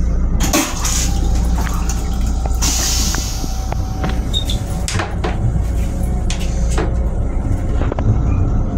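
Metro-North M7 railcar running, heard from inside its small restroom: a steady low rumble with scattered knocks and rattles and a brief burst of hiss about three seconds in.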